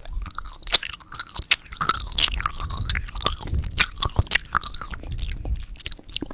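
Close-miked crunching and chewing of a building-block candy in the mouth: a dense run of sharp, crackly crunches.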